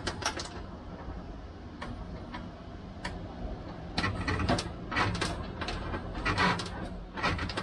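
Steel rudder control cable being pulled back through a fairlead and dragged over the wooden fuselage: a string of light ticks and scraping rasps, busier and louder in the second half.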